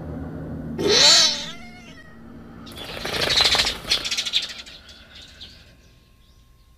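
A cat yowls once, a pitched cry sweeping up and back down about a second in. Then comes a rapid flutter of many wings as a flock of sparrows takes off, dying away over about two seconds.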